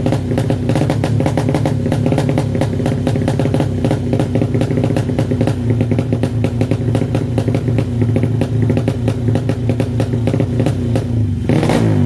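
Honda Supra motorcycle's single-cylinder engine, built up to 200cc, idling through a new Thai-style exhaust with a rapid, even popping beat. It rises briefly near the end.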